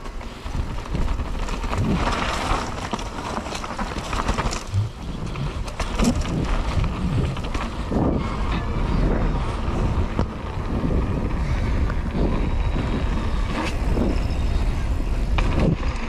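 Mountain bike descending a dirt downhill trail: wind rumbling on the microphone, with scattered knocks and rattles from the bike over rough ground.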